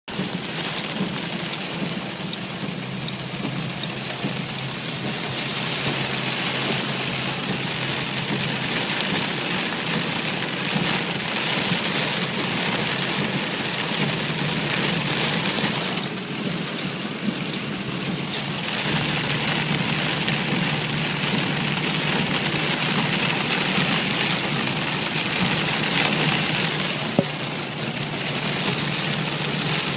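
Heavy rain pouring down steadily, swelling and easing in waves, with a single sharp tap near the end.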